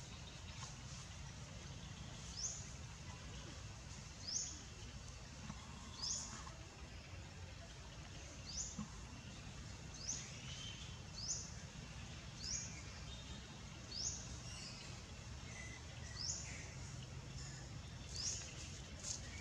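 A bird repeating a short, high, rising call about every one and a half seconds, with a few fainter lower bird notes among them, over a steady low outdoor rumble.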